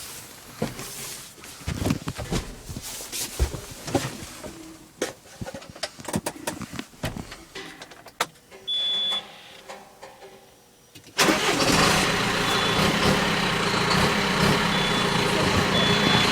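Scattered clicks and knocks and a short high beep, then about eleven seconds in the John Deere 6430 tractor's six-cylinder turbodiesel starts and runs steadily and loudly.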